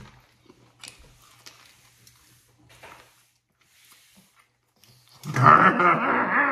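Faint eating sounds, small mouth clicks and smacks as a man chews and licks his fingers, then about five seconds in a loud growling yell from him lasting just over a second.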